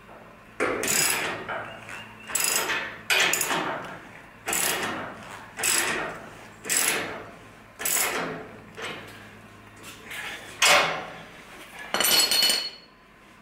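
Socket ratchet wrench clicking in repeated strokes, about ten of them, roughly one a second, as it runs up the nut on a lower control arm's pivot bolt.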